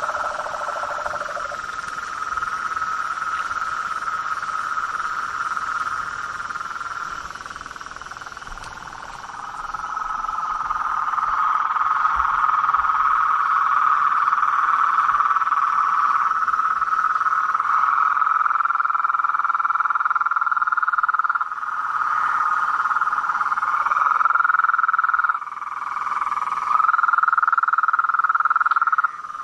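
Dense chorus of frogs calling continuously at a steady, fairly high pitch. It dips and comes back abruptly a few times in the last several seconds.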